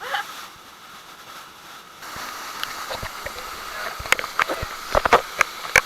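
Steady rush of waterfall water that grows louder about two seconds in, with several sharp knocks or splashes close by in the last three seconds.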